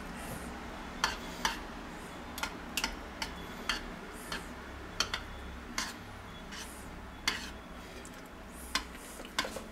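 A small spoon stirring thick cream soup in a stainless steel pot, clicking against the pot's sides in irregular ticks, a little under two a second.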